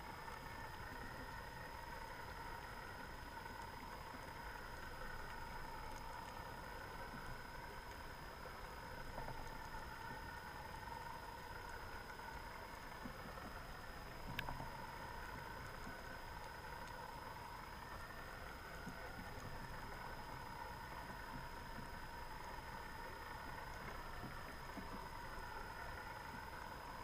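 Steady underwater drone of an idling boat engine, heard through an underwater camera housing, with a single sharp click about halfway through.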